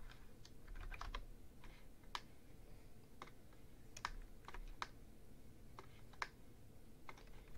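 Computer keyboard keys being typed at an uneven pace: about fifteen separate, irregularly spaced clicks.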